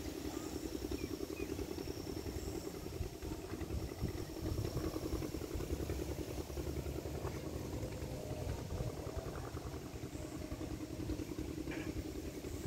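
An engine running steadily at a constant speed, with a fast, even pulse that does not change.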